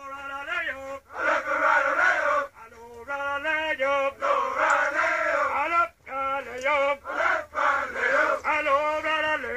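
A recording of a military marching cadence playing: men's voices chanting in sung phrases, call and response.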